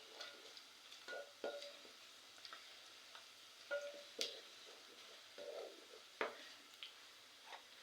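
Stirring in a cooking pot: a spoon scraping and clinking against the pot at irregular moments, with two sharper knocks about four and six seconds in, over a faint hiss.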